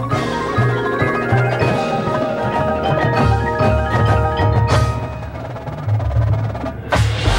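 A drum corps front ensemble playing mallet percussion (marimbas, xylophones and chimes) over sustained low bass notes, with many struck notes ringing together. The music breaks off briefly near the end.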